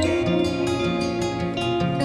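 Background music: gentle plucked acoustic guitar.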